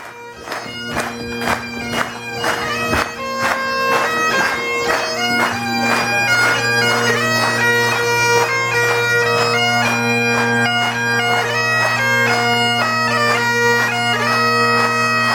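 Bagpipes playing a tune of quick notes over their steady drones.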